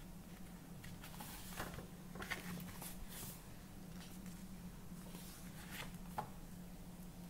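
Paper pages of a paperback colouring book turned and smoothed by hand: several short, soft rustles and a few light taps, over a faint steady low hum.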